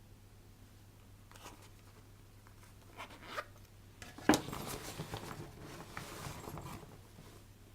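Gear being handled and pulled from a backpack pouch: a few light clicks, a sharp knock about four seconds in, then a few seconds of rustling and scraping.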